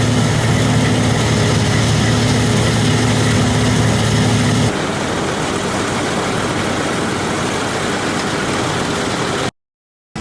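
Heavy farm machinery engine running steadily with a low hum, changing abruptly about halfway through to a noisier machine sound, then cutting off shortly before the end.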